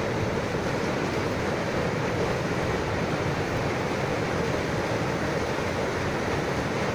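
Small river waterfall pouring over rocks into a plunge pool: a steady, even rush of falling water.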